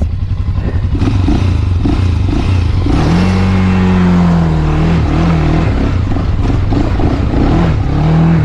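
Quad (ATV) engine under load as the stuck machine is driven while being pushed out of a trench: running low at first, it revs up about three seconds in and holds for a couple of seconds, drops back, then revs again briefly near the end.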